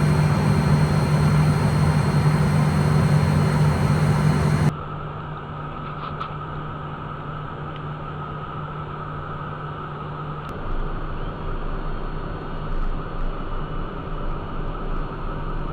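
Steady cockpit noise of a Cessna Citation 501 in flight: its twin Pratt & Whitney Canada JT15D turbofans and the airflow make a constant hum and hiss. The noise is loud and full at first, then drops suddenly about five seconds in to a quieter, duller steady drone.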